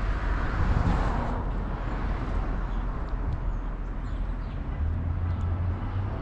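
Outdoor ambience dominated by road traffic: a vehicle passes, swelling about a second in and then easing off, and a low steady engine hum sets in near the end.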